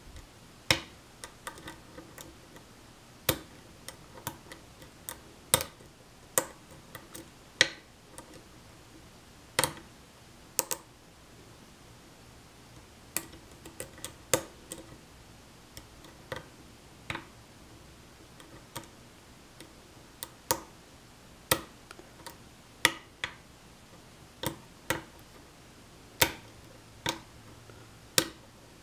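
Metal hook pick clicking irregularly against the pins inside a challenge lock cylinder while it is single-pin picked under tension, sharp ticks about once a second with a few quick clusters. The lock's pins are heavily serrated, so clicks come as pins catch and set.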